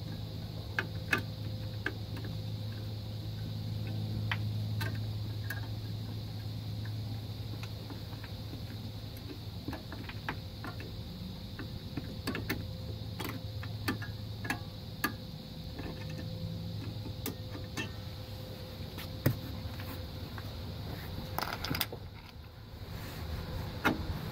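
Minivan rear drum-brake shoes and their spring hardware being handled and fitted on the backing plate: scattered light metallic clicks and taps at irregular moments, over a steady low hum.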